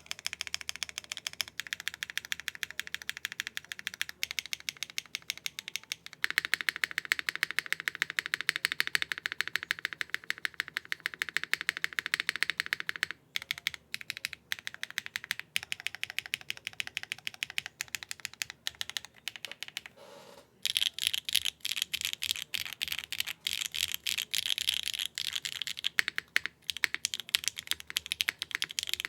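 Typing on a TKD Cycle7 mechanical keyboard with HMX Sunset Gleam switches, stock aluminium plate and no foam: a fast run of keystrokes that thins to sparser presses in the middle, a brief pause about twenty seconds in, then fast typing again.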